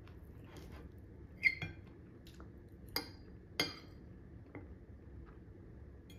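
Spoon and fork clinking against a plate while eating: a handful of short clinks, the loudest about a second and a half in, with fainter taps between.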